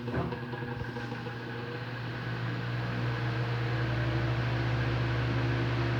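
Electric fan motor running on its lowest speed (1), a steady hum with air noise that builds gradually over the first few seconds as the blades spin up and then holds. The fan now runs on a new 2 µF run capacitor, which cured the excess noise at low speeds; the old one had dropped to 1.2 µF.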